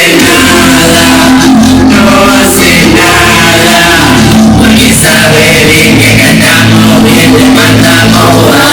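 Very loud live cumbia music with sung vocals over a steady band backing.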